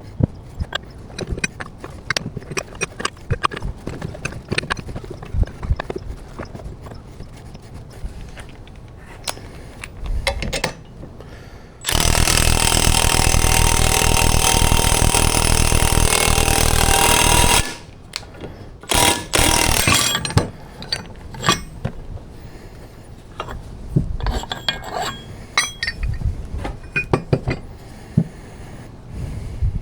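Scattered clinks and knocks of tools on metal parts, then a power tool running steadily for about six seconds in the middle, followed by two short bursts of it.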